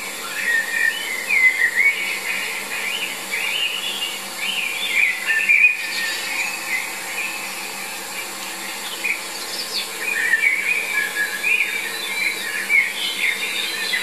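Songbirds singing: a continuous run of quick, warbling, whistled phrases that keeps going without pause.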